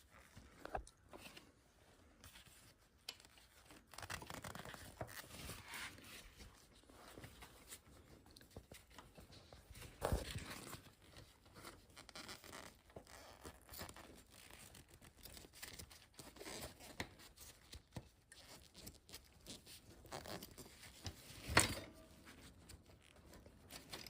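Faint, irregular scraping and clicking of metal parts as a front axle is slid slowly through stacked steel washers and a caliper bracket, with a couple of sharper knocks about ten seconds in and near the end.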